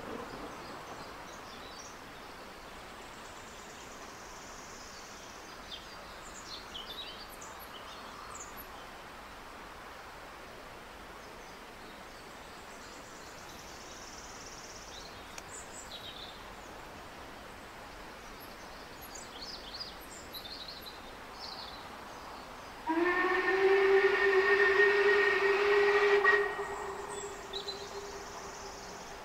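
A Talyllyn Railway narrow-gauge steam locomotive's whistle sounds one long blast of about three seconds near the end. Its pitch rises slightly as it starts, then holds steady before it dies away. Before it there is quiet outdoor ambience with faint high chirps.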